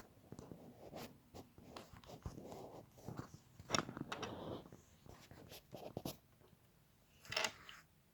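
Plastic LEGO pieces being handled and snapped together: irregular small clicks and rustling, with louder clicks about four seconds in and near the end.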